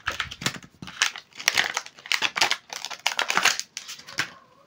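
Stiff clear plastic blister packaging crackling and crinkling as it is cut and pried open to free a pair of pliers. It is an irregular run of sharp crackles that stops about four seconds in.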